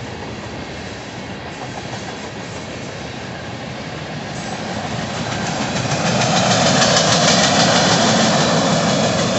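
Freight train's tank cars and hopper cars rolling past on steel rails, wheels clicking over the track. The rumble and rattle grows louder from about five seconds in.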